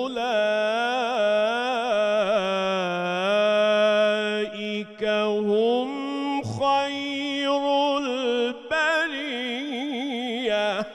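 Male Quran reciter chanting in tajweed style: long held notes that waver through melismatic ornaments, broken by a few short pauses for breath.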